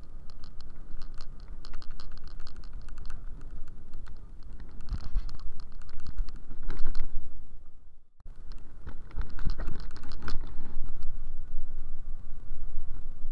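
Wind buffeting the microphone with a rapid clicking rattle as a scooter is ridden along the road, cutting out briefly a little past halfway.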